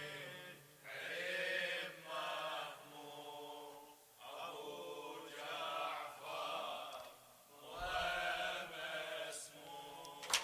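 A group of male voices chanting a mourning refrain in unison, in phrases about a second long with short breaks, softer than the lead reciter.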